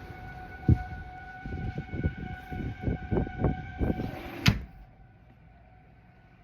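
Civil-defense tornado warning siren sounding a steady tone, with low thuds and rumbles over it. About four and a half seconds in there is a sharp knock, after which the siren is much fainter.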